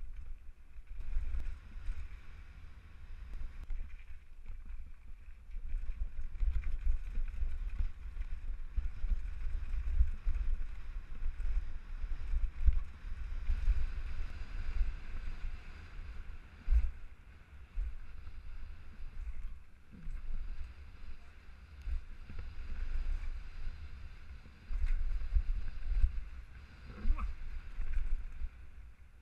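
Wind buffeting the microphone of a camera on an all-mountain bike during a fast downhill run, a low rumble that surges and dips with speed, over the hiss of tyres on dirt and gravel and a few knocks from bumps in the trail.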